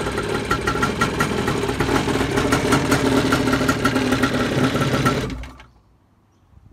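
The two-stroke twin of a freshly rebuilt 1987 Kawasaki X2 jet ski idles out of the water with no cooling hose, then stops about five seconds in.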